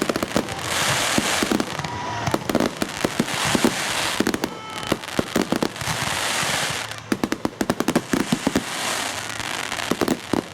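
Fireworks going off, with rapid strings of sharp crackling pops in several clusters over a steady hiss.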